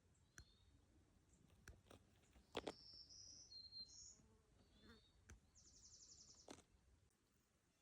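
Faint songbird calls: a few short high chirping phrases, then a quick even trill a little past halfway, with a few soft knocks in between.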